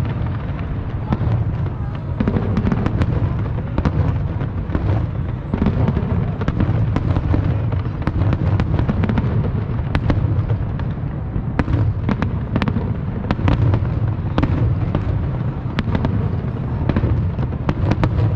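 New Year fireworks going off: a dense run of sharp cracks and bangs over a continuous low rumble.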